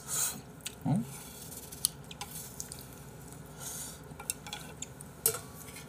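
Ramen noodles slurped in one short noisy pull at the start, then wooden chopsticks clicking against the bowl several times. A brief hum from the eater comes about a second in.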